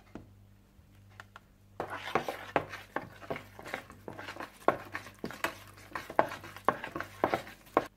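A utensil stirring a thick yogurt-and-spice marinade in a bowl: irregular scraping and clinking strokes that start about two seconds in.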